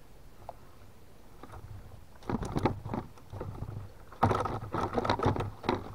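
Gill net being hauled by hand over the side of a wooden canoe: wet mesh dragging and water splashing and dripping in irregular bursts, starting about two seconds in and busiest near the end.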